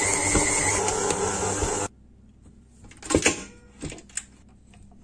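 Electric stand mixer running with a steady hum as its dough hook kneads a yeast bread dough in a steel bowl, then cutting off suddenly about two seconds in. A few light knocks and clicks follow.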